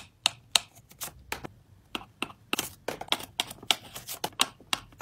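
Folded origami paper crackling and snapping as the model is flexed and worked in the hands: a quick, irregular run of sharp, crisp clicks.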